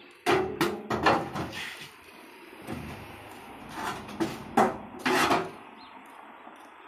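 Heavy round steel lid being handled in a steam locomotive's cab: a run of sharp metal clanks and knocks in the first second, then more between about four and five and a half seconds in.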